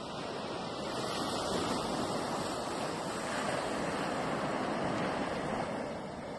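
Ocean surf washing on the shore, a steady rushing noise that swells about a second in and eases off near the end.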